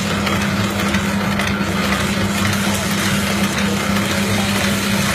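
Meatball-forming machine running steadily, its motor giving a constant hum under an even mechanical whir.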